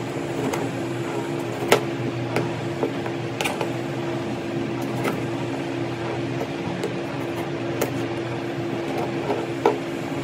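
Kitchen knife slicing through a tomato on a plastic cutting board, the blade knocking the board at irregular intervals. Under it runs a steady mechanical hum with a low drone, most likely construction machinery.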